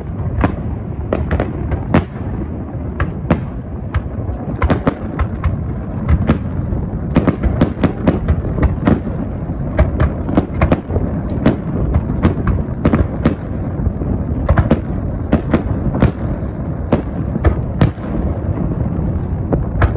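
Aerial firework shells bursting in quick succession: a dense run of sharp bangs and cracks, several a second, over a continuous low rumble.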